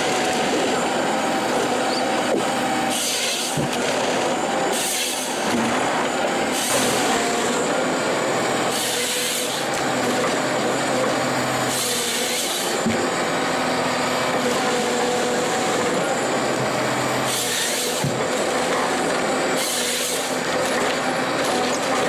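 John Deere forestry harvester running steadily while its harvester head feeds logs through and saws them to length. About eight short, bright bursts rise over the engine as the head's saw cuts through the wood.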